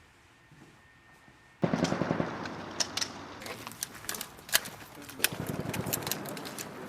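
Rifle fire on a firing range from M4 carbines: quiet for about the first second and a half, then a sudden start of rapid, irregular shots from several rifles overlapping one another.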